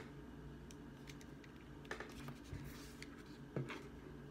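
Faint, scattered clicks and taps from a small plastic portable speaker being handled and its fold-out kickstand worked, over a low steady room hum.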